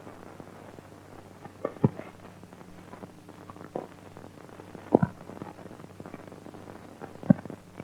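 Several dull thumps at irregular intervals over a steady low hum, the loudest about five seconds in and again near the end.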